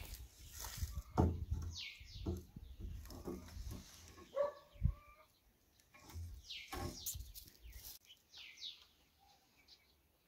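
Wooden boards knocking and scraping as they are handled. There are irregular knocks, the loudest about a second in and again near the five-second mark, and short bird chirps now and then.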